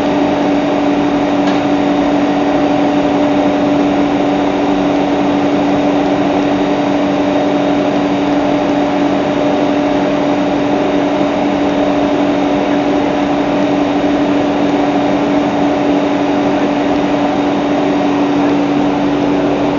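PVS 125 V micro-cut mill running steadily under load as it grinds roasted sesame into tahini: a loud, even machine hum with a constant pitch.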